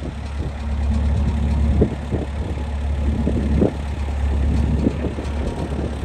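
An engine idling with a steady deep hum, with a couple of short knocks about two and three and a half seconds in.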